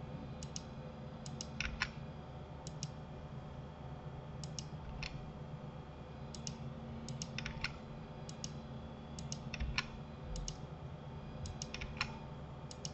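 Scattered clicks of a computer mouse and keyboard, many in quick pairs, over a low steady hum.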